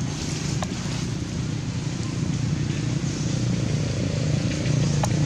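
Steady low engine rumble of a passing motor vehicle, growing louder toward the end, with a couple of faint clicks.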